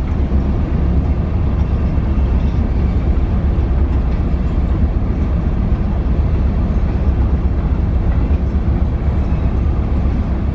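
Freight train of loaded tank cars rolling slowly past, a steady low rumble of wheels on rail heard from inside a car.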